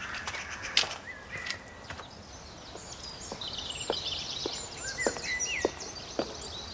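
Garden birdsong: short whistled chirps, then a fast, high twittering through the second half. There are a few footsteps in the first second or so.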